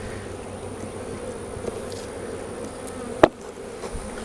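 Honeybees buzzing in a steady hum around an opened hive, with one sharp knock about three seconds in.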